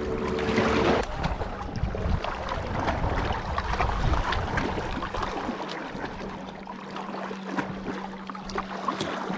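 A brief rush of noise in the first second, then gentle water lapping with scattered light clicks; a faint steady hum comes in about six seconds in.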